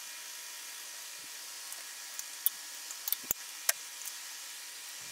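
Faint steady hiss with a few light clicks and taps in the second half, from a small leather piece being handled and set down on a granite countertop.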